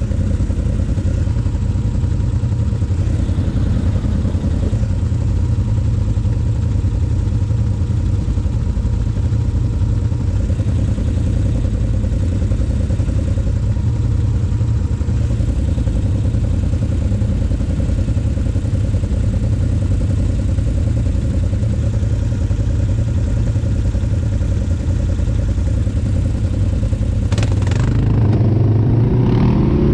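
Can-Am Renegade 800 ATV's V-twin engine running steadily at low revs. About 27 seconds in there is a brief noise, and then the engine revs up with rising pitch.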